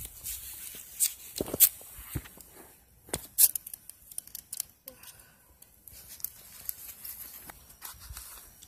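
A ferrocerium rod being scraped hard with a steel striker, a handful of sharp rasping strikes in the first three and a half seconds. The sparks light a tuft of cotton smeared with petroleum jelly, and quieter handling sounds follow.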